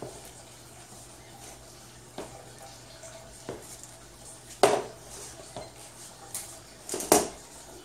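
Metal frame of a folding rollaway bed clanking as it is pulled open and unfolded, with a few light knocks and two loud metallic clanks, a little past halfway and near the end.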